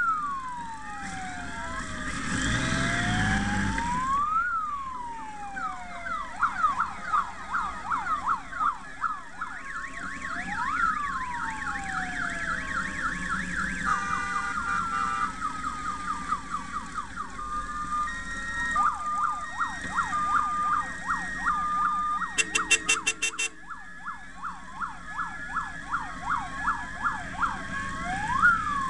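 Electronic sirens sounding over one another: slow rising-and-falling wails, stretches of fast yelping, and steady held tones, with a short burst of rapid pulsing about three quarters of the way through. A low rumble comes in about two to four seconds in.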